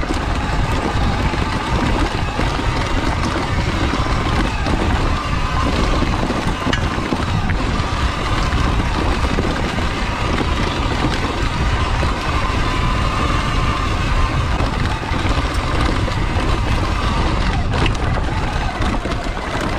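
Sur-Ron electric dirt bike ridden fast down a dirt trail. The electric motor's whine wavers up and down with speed over a steady rush of wind and trail noise.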